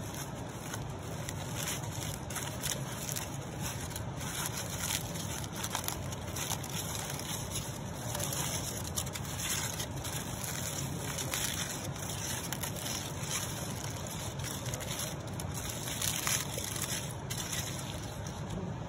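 Aluminium foil crinkling and crackling in quick irregular bursts as a foil packet is peeled open by hand, over a steady rush of flowing water.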